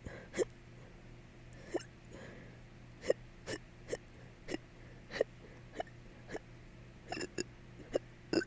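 A person hiccuping over and over: about a dozen short, sharp hiccups at uneven intervals, some coming in quick pairs.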